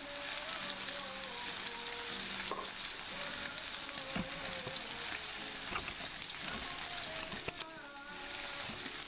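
Slices of Iberian pork secreto sizzling steadily as they sear in hot oil in a frying pan.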